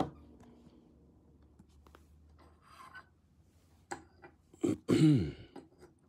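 A man briefly clears his throat about five seconds in, a short sound falling in pitch. Before it come faint clicks and rustles of a trading card in a hard plastic holder being handled and set on a stand.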